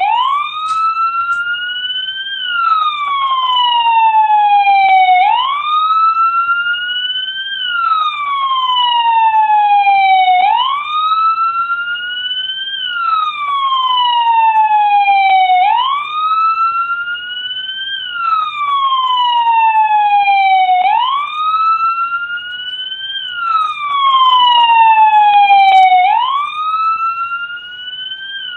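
American police car siren sounding a wail: the pitch shoots up, peaks, then slides slowly down. It repeats about every five seconds.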